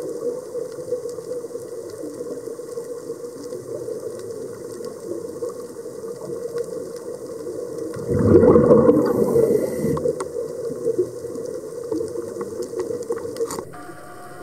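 Underwater sound of a scuba diver's regulator breathing, with a loud burst of exhaled bubbles about eight seconds in, over a steady low hum.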